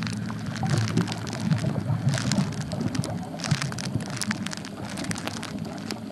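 Underwater reef noise through a camera sealed in a soft waterproof pouch: dense, irregular crackling and clicking over a low muffled rumble.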